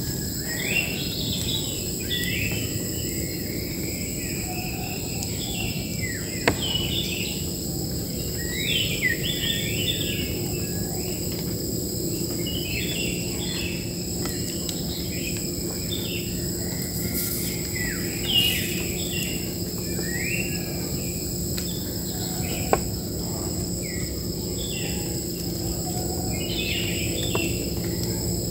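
Wild birds chirping and singing in short, repeated phrases over a steady high insect drone of crickets or cicadas, with a couple of sharp clicks.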